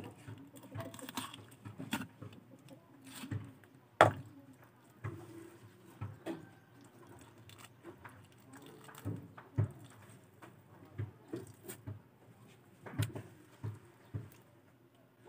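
Small fish being split and cleaned by hand with a knife on a board: scattered taps, clicks and wet handling noises, with one sharp knock about four seconds in.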